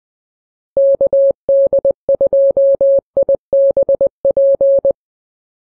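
Morse code sent as a single steady tone, keyed on and off in a fast run of short and long beeps. It starts about three-quarters of a second in and stops about a second before the end.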